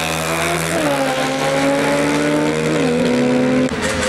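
Drag-racing motorcycles at full throttle down the strip. The engine note climbs and drops back with an upshift about a second in and another near three seconds. The sound changes abruptly just before the end.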